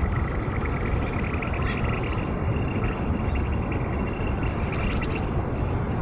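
Thrown rocks hitting thin lake ice, which answers with short high chirps like a hollow bird chirp or a sci-fi blaster: acoustic dispersion in the ice, the highs arriving ahead of the lows. These sit over a steady low rumble of city background noise, the loudest sound throughout.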